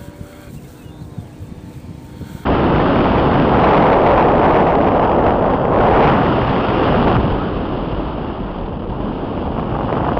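Loud, rough wind and propeller noise on the onboard camera of a twin-motor Skywalker RC plane in flight. It starts suddenly about two and a half seconds in, after a quieter stretch, and eases a little after about seven seconds.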